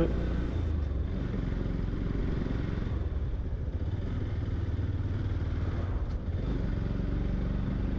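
Yamaha FZ-X motorcycle's single-cylinder engine running steadily while riding along, a low even rumble.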